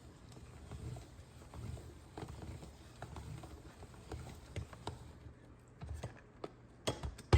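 A block of mozzarella being grated on a hand grater: a loose run of soft scraping strokes with light clicks, then one sharp knock near the end.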